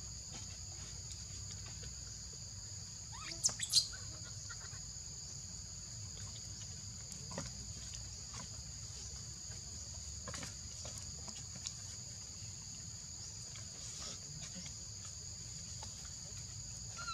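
Steady high-pitched drone of insects, with a few short, sharp high chirps about three and a half seconds in and scattered faint clicks afterwards.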